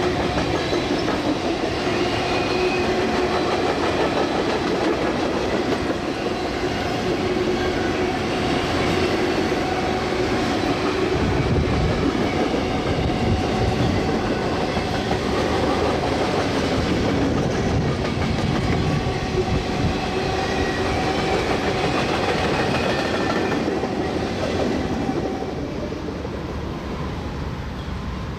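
Norfolk Southern freight train rolling past, its cars clattering along the track with a steady hum underneath. The sound gets quieter near the end.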